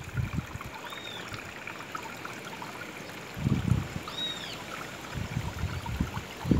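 Water trickling and flowing steadily over stones, with a couple of low thumps around the middle and a few short high chirps.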